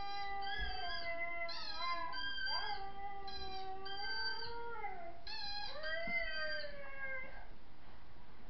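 Several dogs howling together: long, overlapping howls that slide up and down in pitch and keep going without a break.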